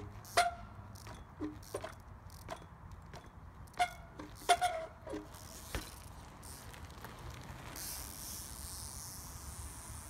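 Monty 20-inch trials bike being hopped and landed on asphalt: a string of sharp knocks and clanks, some with a brief metallic ring, the loudest about half a second in and again around four to five seconds in. A steady high hiss sets in near the end.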